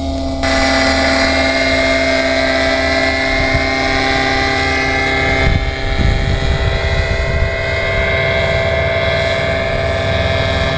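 Aircraft engine running steadily: a constant whine over a low rumble. About halfway through, the low part of the sound changes.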